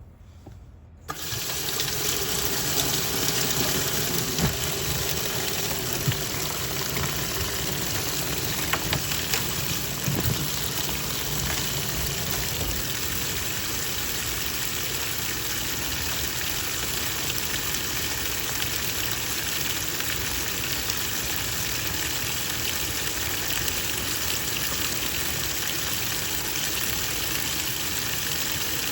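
Twin-tub washing machine running, water sloshing and churning in the wash tub. It starts suddenly about a second in, then stays steady.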